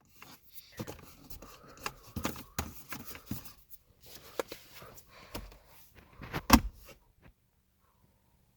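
Hands handling the plastic center console trim and switches of a 2017 Fusion: a run of irregular plastic clicks, knocks and rustles, with the sharpest knock about six and a half seconds in. The handling stops about seven seconds in.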